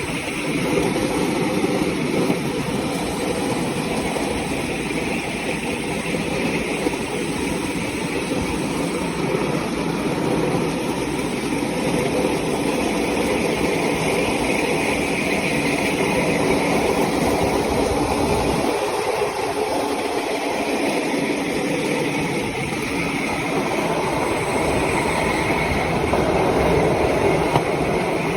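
A motor running steadily, a continuous drone; the low rumble thins briefly about two-thirds of the way through.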